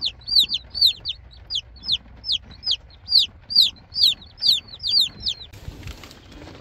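Day-old baby chicks peeping in a cardboard shipping box: loud, high-pitched chirps, each rising then falling, about three a second, stopping about five and a half seconds in. After that comes a rustling as the cardboard box is handled.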